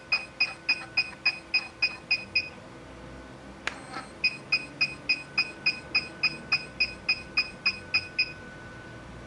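HIFU face-lifting machine beeping in quick runs, about five short high beeps a second, as it fires a line of ultrasound shots. The beeping stops about two and a half seconds in, a single sharp click follows a second later, then another run of beeps lasts about four seconds and stops near the end.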